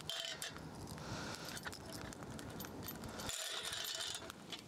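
Steel chain of a campfire tripod rattling and clinking as a small metal kettle is hooked onto it and adjusted, with many quick metallic clicks and brief rings.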